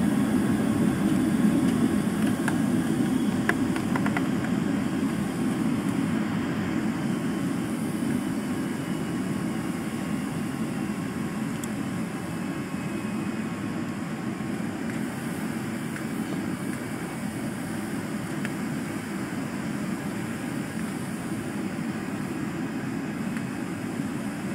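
Airliner cabin noise heard from a window seat on approach: a steady low rumble of jet engines and airflow through the fuselage that eases a little over the first dozen seconds, with a faint high whine above it.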